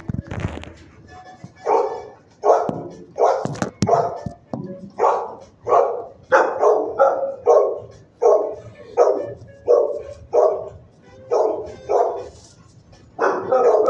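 A dog barking repeatedly in a shelter kennel, a steady run of single barks about one to two a second, then a quicker flurry near the end. A few knocks sound just before the barking starts.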